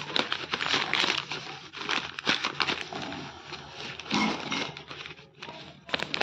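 Rustling and crinkling of a phone-holder package being handled, in uneven bursts with many small clicks and a brief lull a little after the middle.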